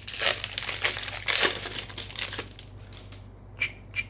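Crinkling and tearing of a trading-card booster pack's wrapper as it is ripped open, for the first two and a half seconds, then three light, sharp clicks as the cards are handled.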